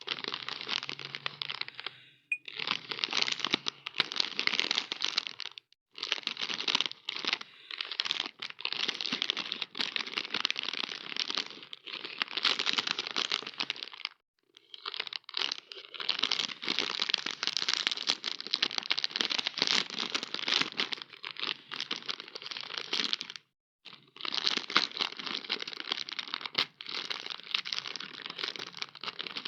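Plastic snack wrappers crinkling and tearing as packets are opened, in long stretches of dense crackle broken by a few short pauses.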